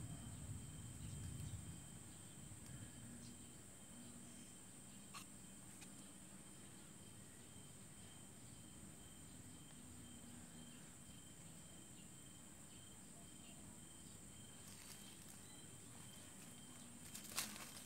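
Faint, steady high-pitched insect chirring, with a few sharp crackles near the end.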